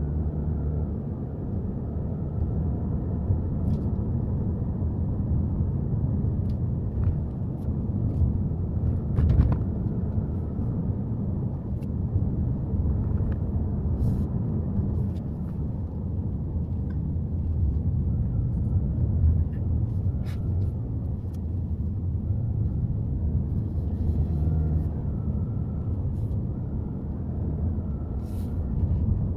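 Subaru Forester being driven, a steady low rumble of engine and road noise, with scattered small clicks and knocks.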